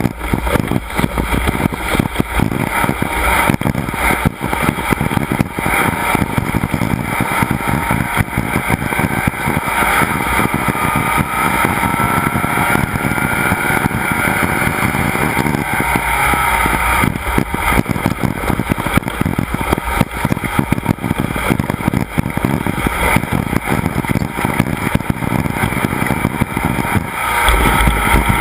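Off-road race vehicle running at speed, its engine pitch rising slowly at times, under a dense, constant clatter.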